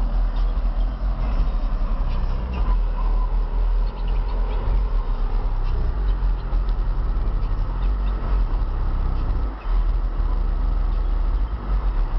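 Pioneer subwoofers in a Buick Regal's trunk playing music loud, with heavy pulsing deep bass. The bass breaks off briefly about three quarters of the way through.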